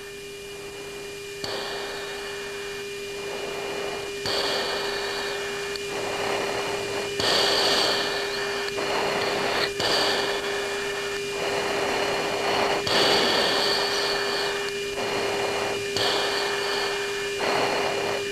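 Military aircraft radio and intercom audio with no one talking: a steady hum, with bursts of radio hiss that switch on and off abruptly every two to three seconds as channels are keyed open.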